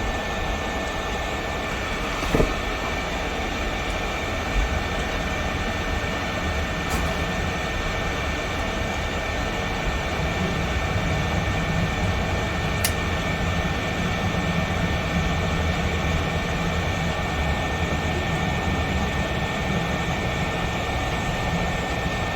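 Heat gun's fan blowing steadily with a thin, high whine as it heats heat-shrink tubing.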